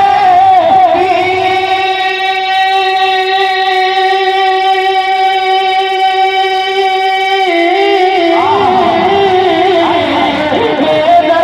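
Devotional naat music: one long steady note is held for about six seconds, then the melody moves on in wavering ornaments.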